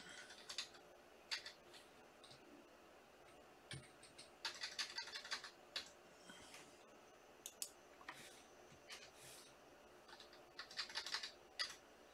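Faint typing on a computer keyboard: scattered key clicks, with quick runs of keystrokes about four and a half seconds in and again near the end.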